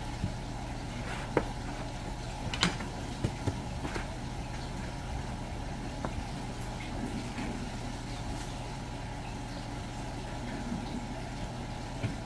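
Knife work on a cutting board while slicing fish for sashimi: scattered light knocks and clicks, the sharpest about two and a half seconds in, over a steady mechanical hum.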